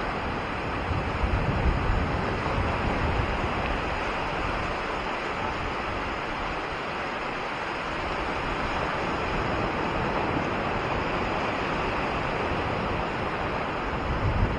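Small sea waves breaking and washing up a sandy beach: a steady surf hiss, with a low rumble swelling about a second in and again near the end.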